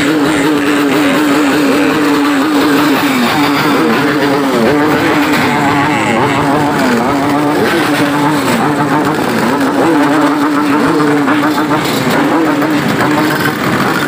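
A pack of two-stroke motorcycle engines running together. One engine's revs repeatedly dip and climb back over the dense mixed noise of the others.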